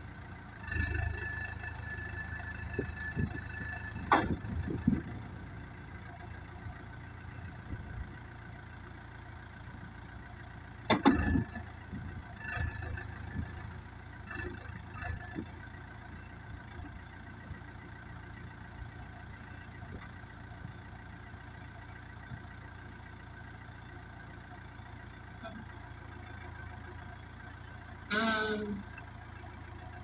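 Terex TX760B loader backhoe's diesel engine running steadily while the backhoe boom is worked on its hydraulics, with a few sharp clanks, the loudest about four and eleven seconds in, and a short higher-pitched sound near the end.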